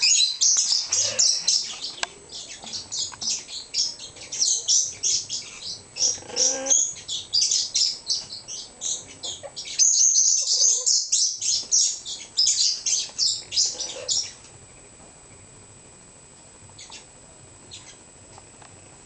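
Amazon parrot bathing in a bowl of water, splashing and flapping its wings in rapid, uneven bursts. The splashing stops suddenly about fourteen seconds in, leaving only a few faint ticks.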